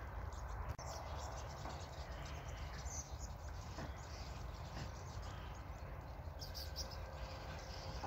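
Scattered high chirps from a large flock of small migrating birds, a few at a time, over a steady low rumble of wind on the microphone.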